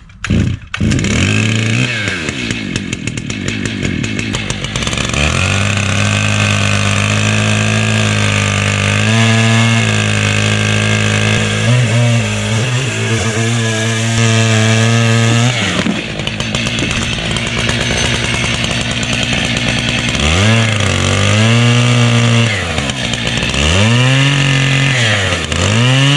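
A new Stihl MS880 chainsaw, being broken in, fires up and revs. It then runs steadily for about ten seconds as it cuts into a log, its pitch wavering under load. Near the end it is revved up and let back down a few times.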